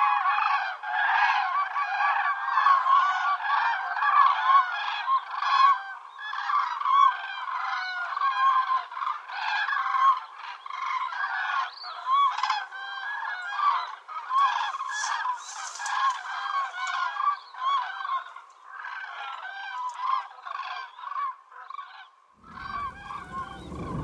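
A large flock of common cranes calling, many trumpeting calls overlapping in a continuous chorus that stops about 22 seconds in. Music begins just before the end.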